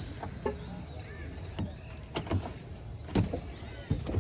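Door of a Mercedes-Benz C200 coupe being opened by hand: a series of short clicks and knocks from the handle and latch as the door releases and swings open.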